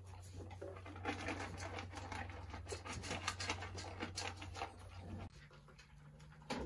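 Young Doberman puppies' paws and claws scratching and pattering on a mat and floor as the litter moves about, many small irregular clicks and scratches. A low hum underneath stops suddenly about five seconds in.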